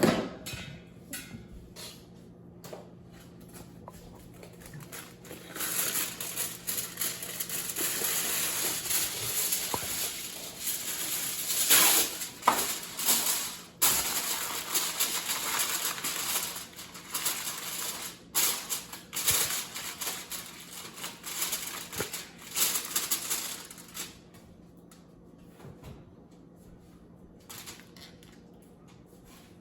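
A roast sizzling and crackling in a hot pot. A dense crackle builds about five seconds in and dies down a few seconds before the end, with scattered clicks.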